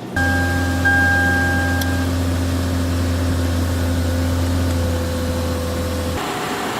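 Lexus car engine idling, a steady low hum with a thin high tone over it for the first two seconds; the hum cuts off about six seconds in.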